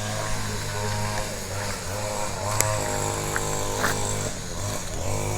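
A small engine running steadily, its pitch wavering slightly up and down, with a couple of faint ticks partway through.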